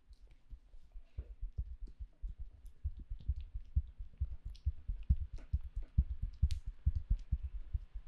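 Hands striking in rapid percussive massage strokes: dull thumps, about five a second, growing louder after the first second.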